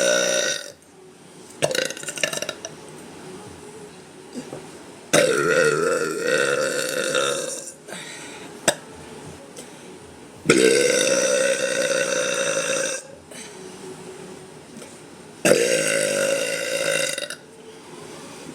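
A woman burping loudly. After a short burp near the start come three long, drawn-out burps of about two seconds each, roughly five seconds apart.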